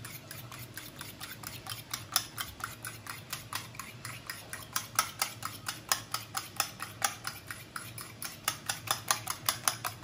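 A metal fork beating eggs in a stainless steel bowl: quick, regular clicks of fork against bowl, about four strokes a second, growing louder and crisper toward the end.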